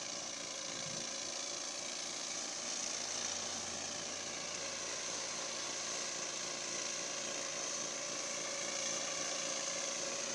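Ingersoll 4223 garden tractor's engine running steadily, driving a Berco snowblower that is throwing snow.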